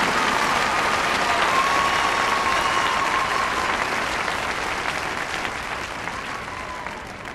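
Crowd applauding, with a few whistles over the clapping; the applause dies away steadily.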